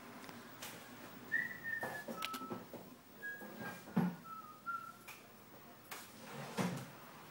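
A few short whistled notes, each a brief near-steady tone, over scattered clicks and knocks; the loudest is a thump about four seconds in.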